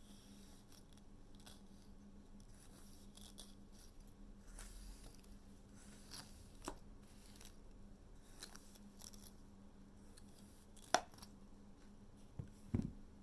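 Quiet handling noises: faint scattered rustles and scrapes over a low steady hum, then a sharp click about eleven seconds in and a double knock near the end, the loudest sounds.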